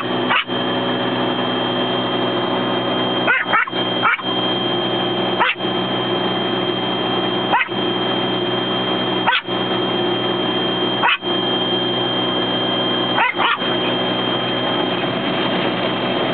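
Yorkshire terrier barking, about ten short barks at irregular intervals, the small dog frightened by the car wash. Under the barks runs the steady noise of the automatic car wash's brushes and water, heard from inside the car, with a thin high whine.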